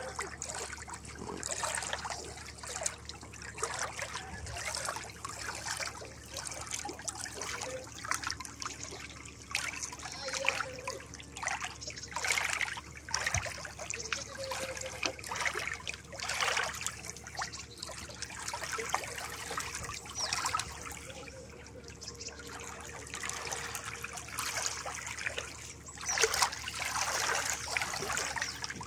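Water trickling and gurgling in uneven surges, like a small stream over stones.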